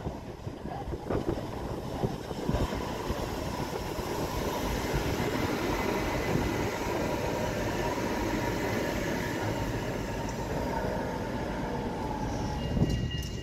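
Tram running along its rails: a steady rolling rumble with a faint high whine that fades out near the end.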